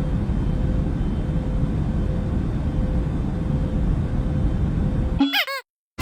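Steady in-flight aircraft noise: a deep, even rumble of engine and airflow with a faint steady hum. About five seconds in it breaks off into a brief warbling tone, then cuts to silence.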